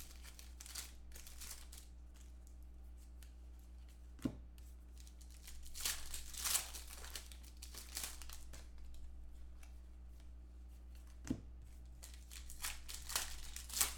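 Foil wrappers of 2015 Contenders football card packs being torn open and crinkled by hand, in bursts of crackling. Two short knocks, about four and eleven seconds in.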